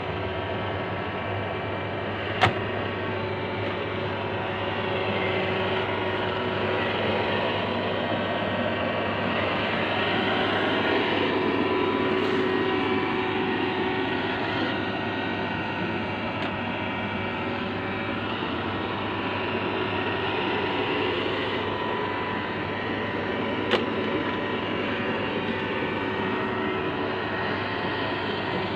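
Robot vacuum cleaner running: a steady whirring of its motor, with two sharp clicks, one a couple of seconds in and one near the end.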